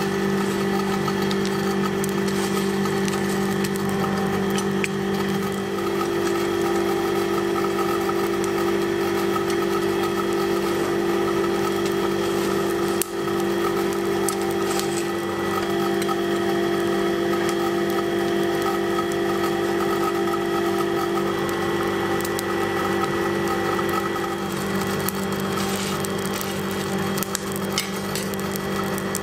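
Coal forge running under forced air: a steady electric-blower hum with rushing air and fire, unchanging throughout, with one brief knock partway through.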